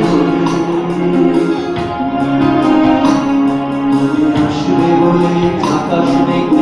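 Live music: a male voice singing a Bengali song through a microphone and PA over a synthesizer keyboard backing with a steady percussion beat.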